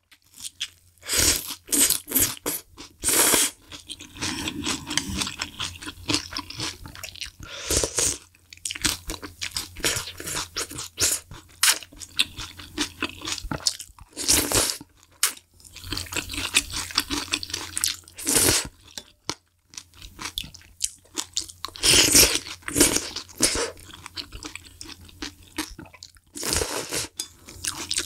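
Close-miked eating of spicy malatang hot pot: noodles and crisp vegetables such as bean sprouts slurped up and chewed with crunching. The sound comes in irregular bursts, with a dozen or so louder slurps spread through it.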